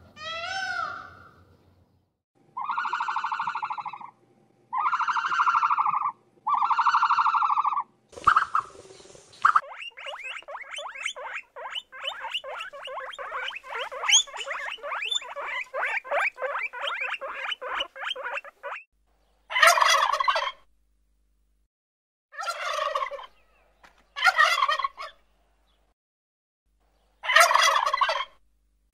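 A string of animal calls: three long drawn-out calls, a short burst of noise, a long run of rapid pulsed calls lasting about nine seconds, then four shorter calls with pauses between them.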